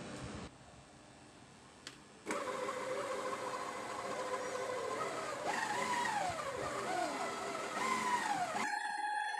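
Small electric kitchen appliance motor switching on and running, its whine wavering up and down in pitch as it works; a short click comes just before it starts.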